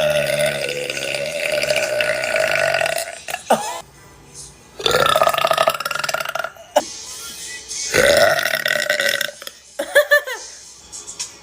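A person belching loudly and repeatedly: three long, drawn-out belches (the first lasting about three seconds), with short belches in between and a quick series of short ones near the end.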